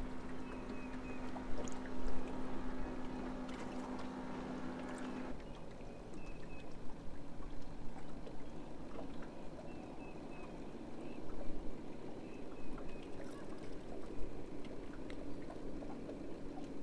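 Bow-mounted electric trolling motor humming steadily, then cutting off about five seconds in, leaving wind and water noise around the boat.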